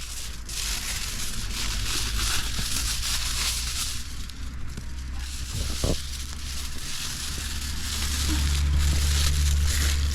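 Campfire of sticks burning with a dense crackle. A low rumble underneath grows louder near the end.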